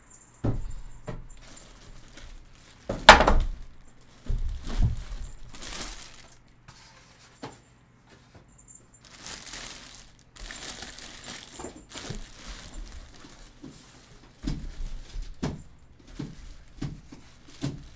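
Unpacking a PC case from its foam packing: knocks and thumps of the case and its foam end caps against a wooden table, the loudest about three seconds in, with the plastic bag around the case crinkling in between.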